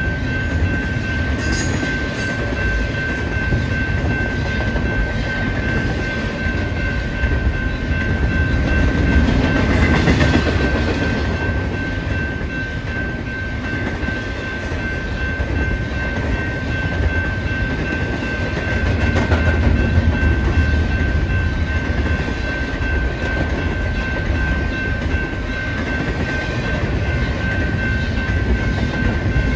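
BNSF double-stack intermodal freight train rolling steadily past a grade crossing: a continuous rumble of wheels on the rails with rapid clicking, and a thin steady high tone running over it.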